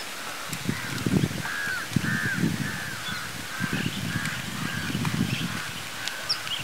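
A bird calling outdoors in a quick run of short, repeated calls, about two a second, stopping about five and a half seconds in, over an uneven low rumble.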